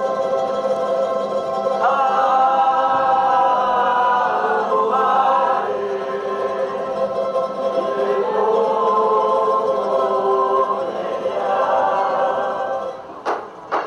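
A Cook Islands performing group singing together in harmony, long held notes moving to new chords every few seconds. Near the end the singing drops away, broken by a few sharp knocks.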